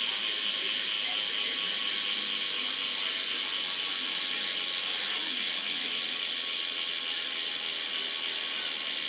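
BMX rear cassette hub freewheeling as the back wheel spins, its pawls giving a fast, steady ratcheting buzz that eases off slightly as the wheel slows.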